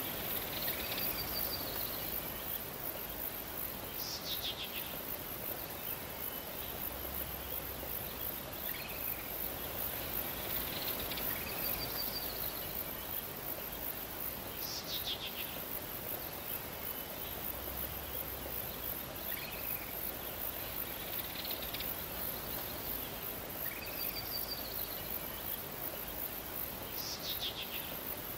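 Nature ambience: a steady high chirring of insects with bird calls, short chirps and a quick descending trill. The same group of calls repeats about every ten seconds.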